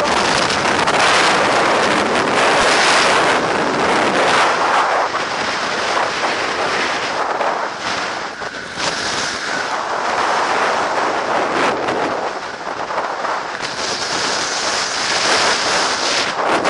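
Storm-force mountain wind, gusting at around 100 km/h, buffeting an action camera's microphone: a loud, continuous rushing noise that eases somewhat in the middle and picks up again near the end.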